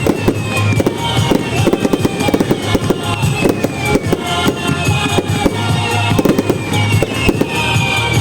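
Fireworks going off in rapid succession, a dense stream of bangs and crackles, over loud music with a repeating bass beat.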